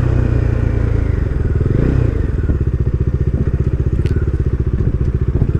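Bajaj Dominar 250's single-cylinder engine running at low revs as the motorcycle slows down, with a short rise and fall in revs about two seconds in, then a steady run of low exhaust pulses.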